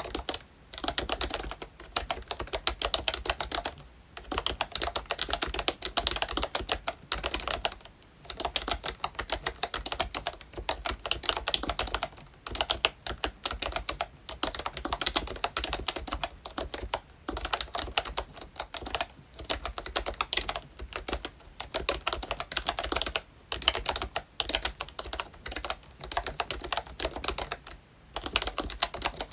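Fast typing on a ROYCHE Disney Mickey Mouse retro membrane keyboard with round typewriter-style keycaps: a dense patter of soft key clicks in runs of a few seconds, with short pauses between runs.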